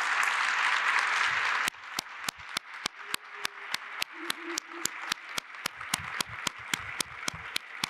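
Audience applause that cuts off abruptly about a second and a half in. After it, one person's hand claps, loud and close to the microphone, at about four a second.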